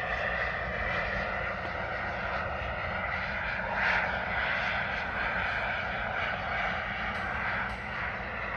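Two KingTech K-85 model jet turbines of a radio-controlled A-10 Warthog in flight, a steady turbine rush that swells briefly about four seconds in as the model passes.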